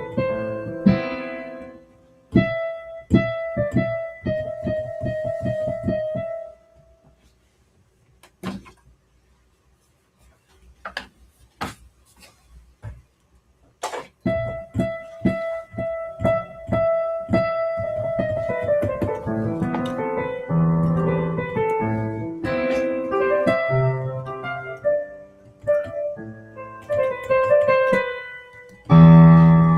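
Piano sound from an electric keyboard or digital piano, a run of notes and chords. About seven seconds in the playing stops for several seconds, with only a few faint clicks, then resumes.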